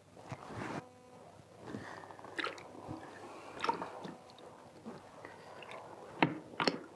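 Hands handling the plastic tub, spinner and wet laundry of a small manual spin washer: irregular clicks, knocks and squelchy rustling, with two sharp clicks near the end.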